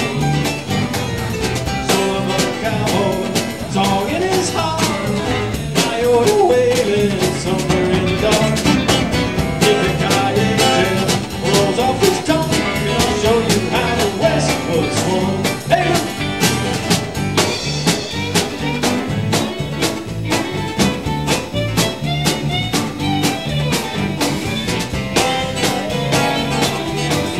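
Live country band playing an instrumental break: fiddle and electric guitar over acoustic guitar, electric bass and a steady drum-kit beat.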